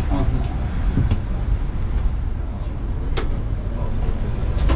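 A1 class tram running along street track, heard from inside its rear cab: a steady low rumble of the running gear, with a sharp click about three seconds in.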